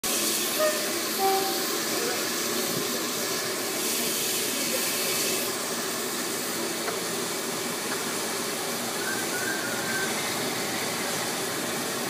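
Steady running noise of a Brush Class 47 diesel locomotive heard from down the line in a tunnel, with a high hiss over it for the first five seconds or so.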